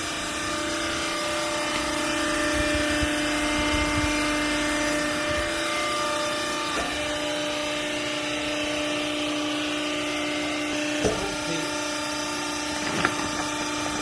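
Hydraulic garment compression baler running: a steady motor-and-pump hum, dropping a little in pitch about halfway, with a few short knocks near the end.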